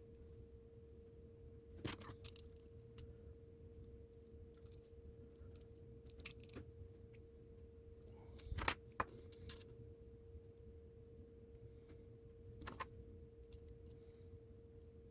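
Scattered light clicks and clinks of small diecast toy-car parts being handled and fitted on a work surface, with a faint steady hum underneath. The sharpest click comes about eight and a half seconds in.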